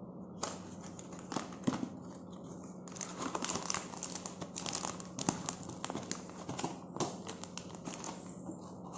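Cardboard carton opened by hand and a foil packet pulled out of it: crinkling and rustling of the foil, with scattered clicks and taps. It is densest from about three seconds in to near the end.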